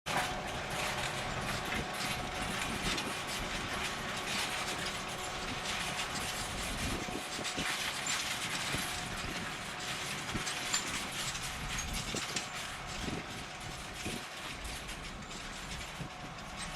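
John Deere 7280R tractor's six-cylinder diesel running steadily while pulling an eight-furrow Kverneland plough through the soil, with scattered clicks and rattles from the tractor and plough.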